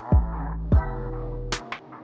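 Electronic background music with a beat: a deep sustained bass note, kick-drum thumps and sharp snare or clap hits.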